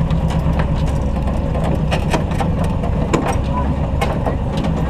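Truck engine running steadily at low revs while crawling over a rough trail, with scattered clicks, knocks and rattles throughout.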